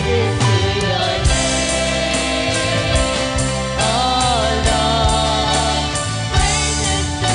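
Live worship band playing a gospel praise song: a woman sings the lead into a microphone over keyboard, guitars and drums keeping a steady beat.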